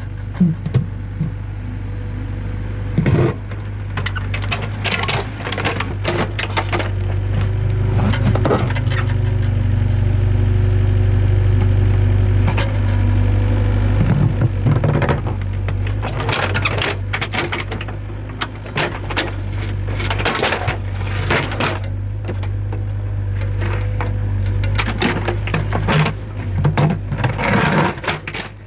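Excavator's diesel engine running steadily, swelling louder for a few seconds near the middle, with repeated knocks and clatters over it as the machine digs.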